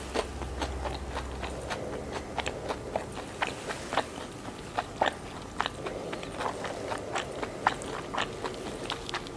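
Chewing a Vietnamese fresh spring roll of rice paper wrapped around shrimp and raw vegetables, with irregular crunches several times a second from the crunchy filling.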